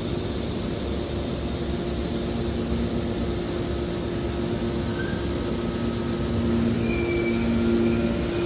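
Hydraulic metal baler running: a steady machine rumble with a constant two-note hum from its motor and pump, growing a little louder about seven seconds in, with faint high squeals near the end.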